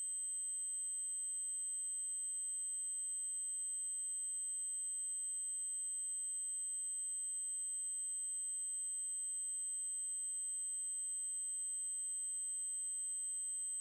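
A synthesized 8192 Hz triangle-wave tone: one steady, unbroken, high-pitched electronic tone.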